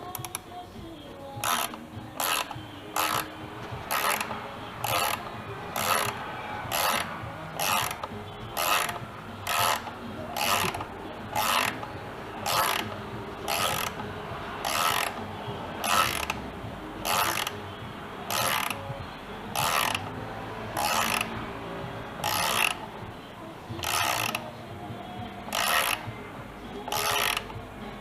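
Hand ratchet wrench worked back and forth on a bolt, each back-stroke giving a short burst of pawl clicks, about one and a half strokes a second, steady throughout.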